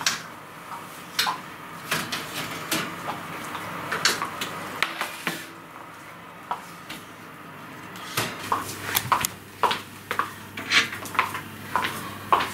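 Metal baking trays clattering and knocking on a table: a series of sharp clinks and knocks, coming more often in the second half.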